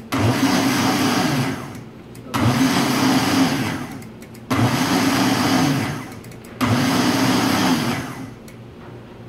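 Countertop blender pulsed four times, the motor spinning up sharply, running about two seconds and winding down each time, coarsely puréeing a mushroom soup base.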